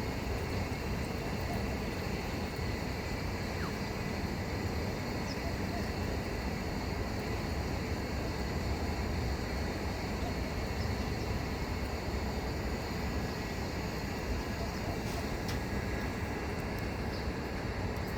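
Steady low outdoor rumble, with a few faint short high bird chirps scattered through it.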